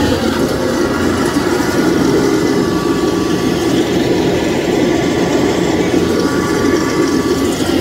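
Kubota DC-105X rice combine harvester's diesel engine running steadily under load as it tows a second combine that is bogged down in mud, pulling on a chain. A faint thin whine joins partway through.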